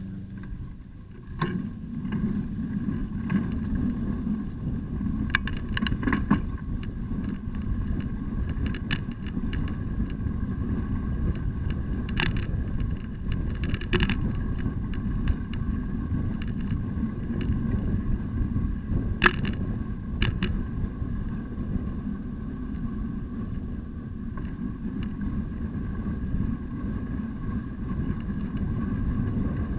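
A ride on a bicycle heard through a camera mounted on the bike: a steady low rumble of tyres on pavement and frame vibration, with occasional sharp clicks and rattles as the bike goes over bumps.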